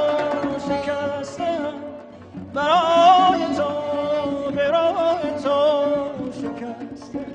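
Persian music: one melody line with quivering, ornamented notes over a low accompaniment. One phrase fades about two seconds in and a new one starts half a second later.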